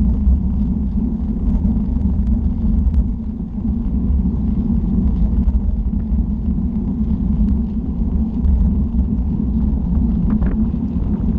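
Wind buffeting the microphone of a camera riding along on a moving road bicycle, mixed with tyre and road noise: a steady, loud low rumble, with a few faint clicks from the bike.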